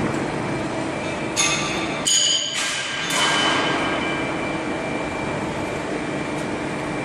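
Hydraulic press brake running, a steady mechanical hum with a faint whine, with two short high-pitched metallic squeals about one and a half and two seconds in.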